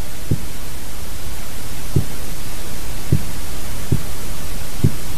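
Distant fireworks: five short, low booms at uneven intervals over a loud, steady hiss of microphone noise.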